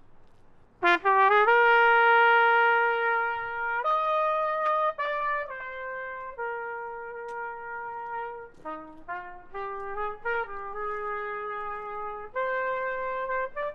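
Solo trumpet playing a melody, one note at a time: about a second in it climbs in a quick upward run to a long held note, then goes on through a slower line of held and shorter notes.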